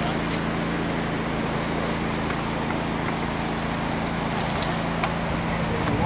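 A steady low mechanical hum over a constant background rush, with a few faint sharp clicks.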